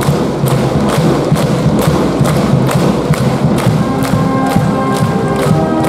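High-school baseball cheering section: a steady beat of hand claps and percussion hits about twice a second, with the brass band coming in on held notes about four seconds in.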